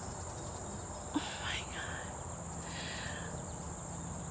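Steady, high-pitched chorus of insects trilling without a break, over a low background rumble, with a couple of faint brief sounds in the middle.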